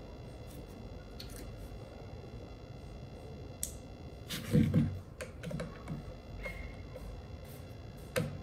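Light plastic clicks and clatter of hand tools and plastic vacuum parts being handled on a tabletop, with a louder knock and rattle about halfway through.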